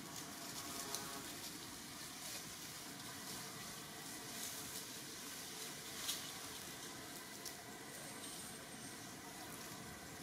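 Faint crackle and rustle of dry leaves and twigs, with a few sharp ticks, the loudest about six seconds in, over a steady hiss.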